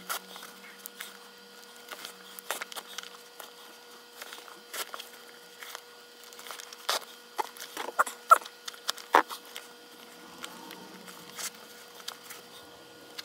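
Leather laces of a baseball glove being pulled through the lacing holes and the leather handled, giving irregular small clicks, scrapes and rubbing, busiest around the middle. A faint steady hum runs underneath.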